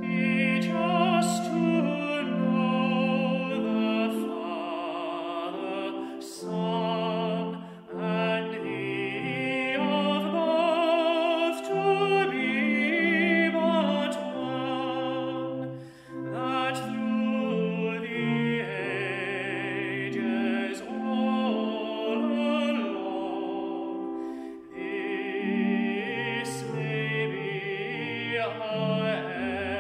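Recorded classical music: an operatic solo voice singing with strong vibrato over orchestral accompaniment.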